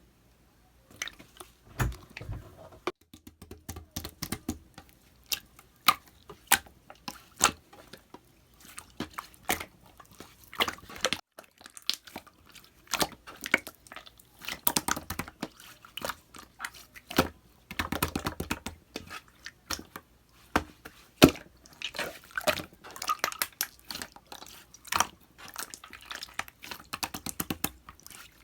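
Clear slime being squeezed and pressed by hand, making irregular wet clicks and pops, starting about a second in.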